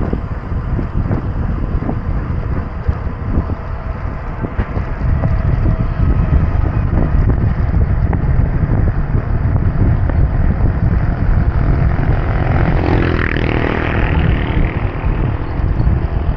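Wind rumble on the microphone and road noise from a moving bicycle, with a motor vehicle passing about thirteen seconds in.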